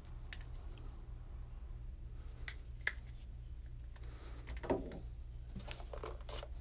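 Quiet handling noises: a coiled power cord lifted and set down on a wooden table, with a few light clicks and one soft knock a little past halfway, over a steady low hum.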